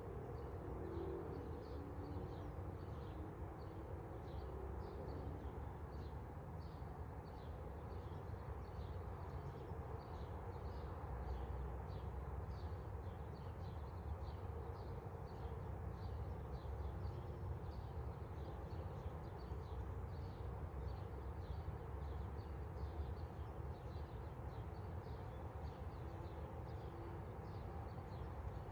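Outdoor ambience: a steady low rumble under faint, high chirps repeating about twice a second.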